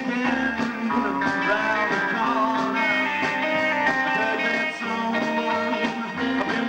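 Live rockabilly band playing a rock and roll number: electric guitar over an upright double bass, with a steady pulsing bass line.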